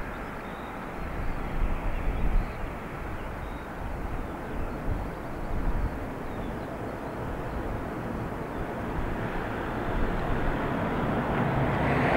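Jet engines of a taxiing Boeing 737-800 airliner, running at low taxi power as a steady rushing noise that grows louder near the end as the aircraft turns toward the listener.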